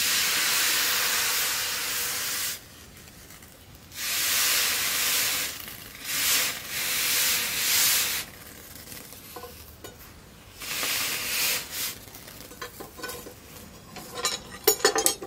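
Hot forged steel machete blade being quenched in a trough of water, hissing and sizzling in several bursts as it is dipped and moved through the water. A quick run of sharp knocks near the end.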